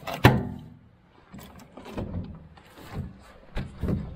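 Heavy metal case of a discarded Sharp microwave oven being tipped and turned over by hand. There is a loud thump just after the start, then several lighter knocks and clunks.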